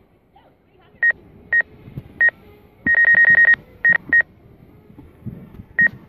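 Drone flight app's too-close proximity warning: short, high, single-pitched beeps. They come singly at first, then in a rapid run of about seven around three seconds in, then spaced out again. This is the sign that the drone's sensors detect an obstacle close by.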